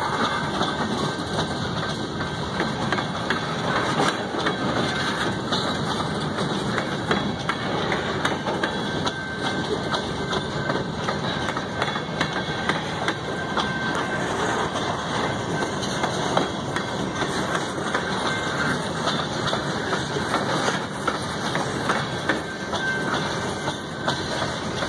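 Freight cars (tank cars and covered hoppers) rolling past close by: a steady rumble of steel wheels on rail, with frequent clicks and knocks.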